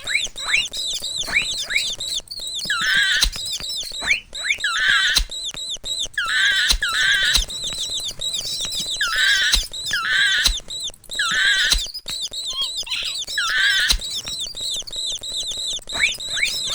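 Mouse squeaking sound effect: quick high-pitched squeaks that fall in pitch and repeat rapidly throughout, with a cluster of louder squeals every second or two.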